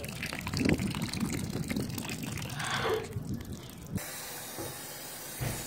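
Stream of water pouring and splashing into a metal dog bowl, filling it. About four seconds in it cuts off suddenly, leaving a faint steady hiss.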